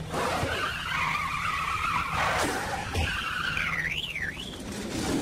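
Cartoon sound effect of a truck's tyres screeching in a long skid, followed by a short warbling squeal that slides down and up about four seconds in.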